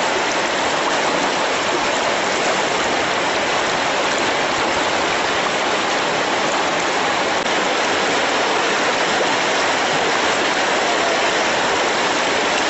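Floodwater rushing and churning over a submerged road: a loud, steady, unbroken rush of turbulent water.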